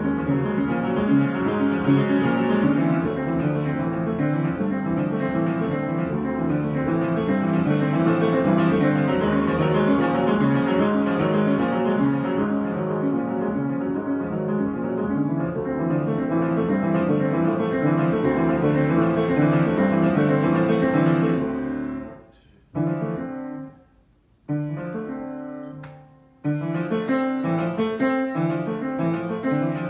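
Improvised solo piano playing: full, continuous chords, then about three-quarters of the way through it breaks into a few separate chords with short silences between before carrying on.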